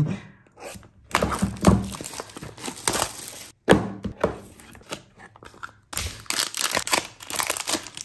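Plastic shrink wrap crinkling and tearing as it is slit and pulled off a cardboard box, with a few knocks and crackles as the box is handled and opened.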